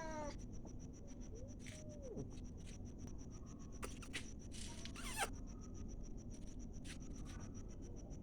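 Quiet rustling and scratching with a few soft clicks, and a short falling squeak about five seconds in, over a faint steady high whine.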